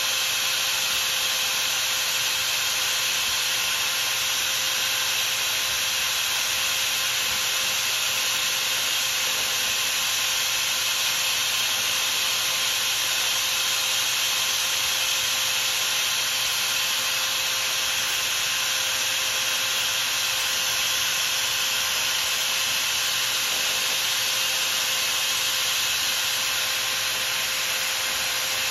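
Flat hand file rubbing steadily against a brass slug spinning in a chuck, over the steady hum of the small motor that drives it.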